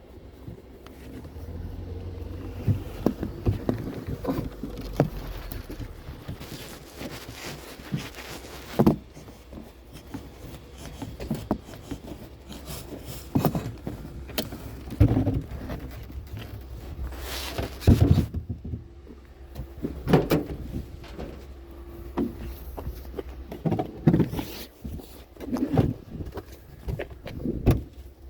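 Irregular knocks and clunks of objects being handled, over a low steady hum.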